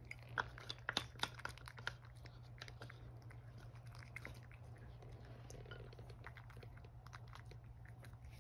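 Cat eating dry kibble mixed with wet food from a plate: a quick run of sharp crunches in the first two seconds, then sparser, softer chewing.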